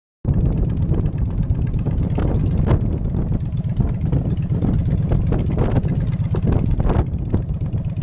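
Cruiser motorcycle engine running as the bike rolls slowly over dirt, with wind buffeting the camera microphone in irregular gusts.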